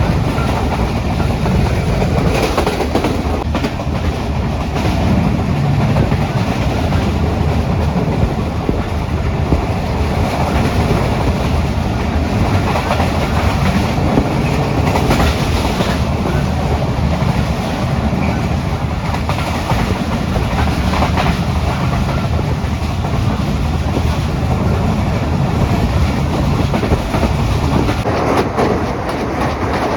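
Pakistan Express passenger train running at speed, heard from aboard: a steady rumble of the coaches with wheels clacking over the rail joints.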